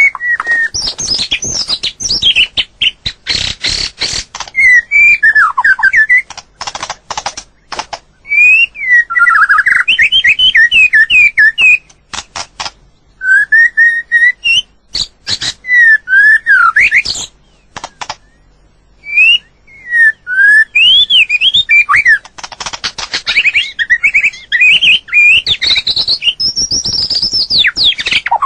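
White-rumped shama singing: varied whistled phrases that slide up and down in pitch, delivered in bursts with short pauses and mixed with sharp clicks.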